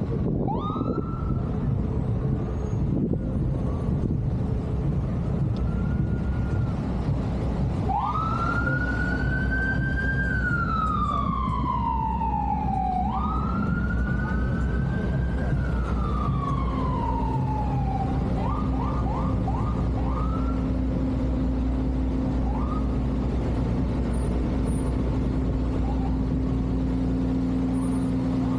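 Emergency vehicle siren in city traffic. It gives a few short whoops, then two long wails, each rising quickly and falling slowly, then a quick burst of four yelps and a couple of short chirps. A steady traffic rumble runs underneath.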